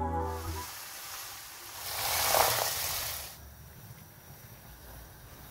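Music ends in the first moment. A loud hiss then swells and fades over about three seconds and cuts off sharply, leaving faint steady noise.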